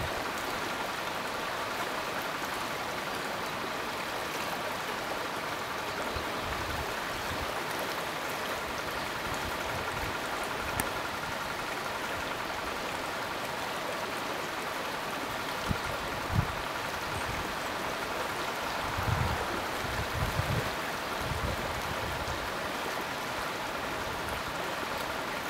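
Stream running steadily past an icy bank, an even rushing water noise, with a few brief low thumps in the second half.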